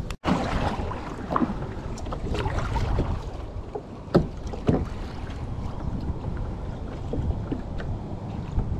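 Wind buffeting the microphone over choppy water, with small waves lapping against a plastic sit-on-top kayak's hull. A few short knocks, the sharpest about four seconds in.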